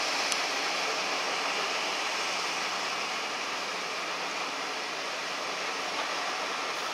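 Ice-loading machinery running with a steady rushing noise as ice is fed through it and loaded, with a small click about a third of a second in.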